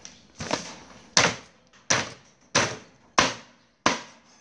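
Meat cleaver chopping through the neck of a whole plucked duck onto a round wooden chopping block: a steady series of sharp chops, about one every two-thirds of a second.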